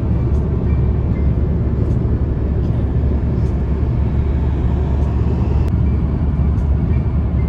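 Steady rumble of tyre and road noise from a car cruising at highway speed, heard inside the cabin.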